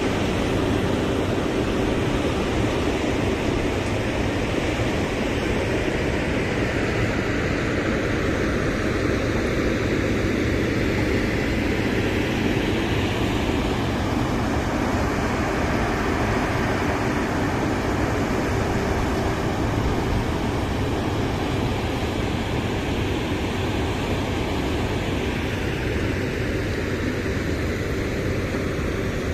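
Engines of a Plasser & Theurer RM900 high-output ballast cleaning machine running with a steady drone.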